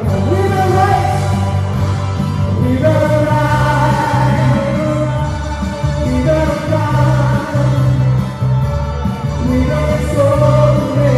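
Live praise-and-worship band playing a song: electric bass and keyboard under a male lead singer on a microphone, with backing singers.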